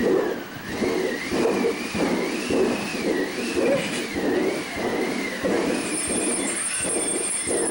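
Live stage sound effects for a spooky scene: a wind machine cranked with a whooshing pulse about twice a second, under a high whistling tone that wavers up and down. Thin high ringing, like small bells being tickled, comes in about six seconds in.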